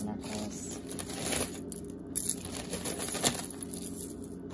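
A hand rummaging through a heap of costume jewelry: metal chains, beads and bangles clinking and rattling against each other, with plastic bags crinkling and a few sharper clicks.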